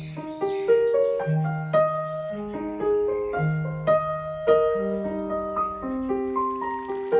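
Background piano music: a gentle melody of single struck notes over a slow bass line, each note fading after it is played.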